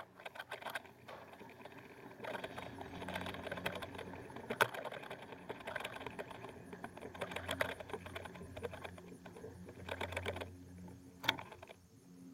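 Small mechanical rattling and rapid, irregular clicking of a home-made cable-tram camera rig running along its line, with a couple of sharper knocks.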